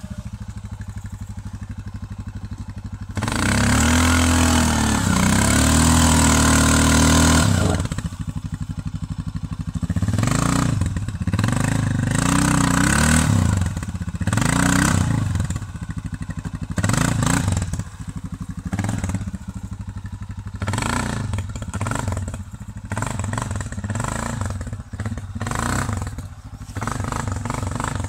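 Russian Mechanics RM 650-2 ATV engine revving in repeated bursts as the quad is driven through deep bog mud. There is one long hard rev about three seconds in, then many shorter revs rising and falling every second or two.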